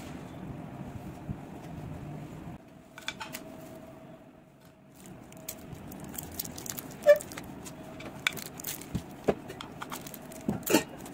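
Plastic candy wrapper crinkling and tearing as it is unwrapped by hand: a run of sharp crackles and clicks, the loudest about seven seconds in and another cluster near the end.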